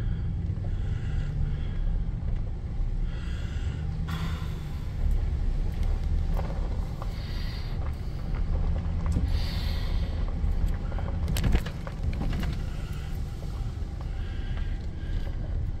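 Pickup truck driving slowly on a gravel road, heard from inside the cab: a steady low engine and road rumble with light tyre noise on the gravel. One sharp knock about three-quarters of the way through.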